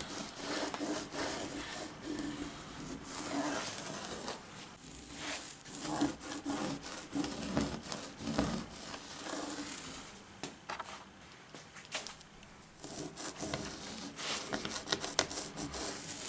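A sock worn over two fingers rubbed along HO scale model railroad rails in quick, irregular scrubbing strokes, wiping grime off the rail heads. The strokes fall off for a few seconds past the middle, then pick up again.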